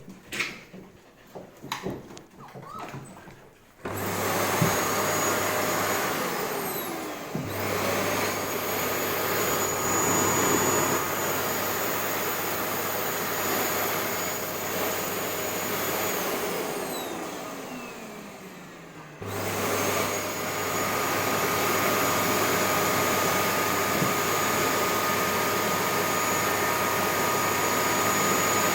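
A vacuum cleaner switches on about four seconds in, after a few light clicks, and runs with a steady whir and hum. Twice its motor winds down with a falling pitch and then comes straight back on at full speed, the second time about two-thirds of the way through.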